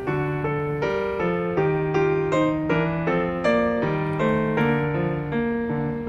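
Background piano music: a melody of single notes changing about every half second over longer, lower notes.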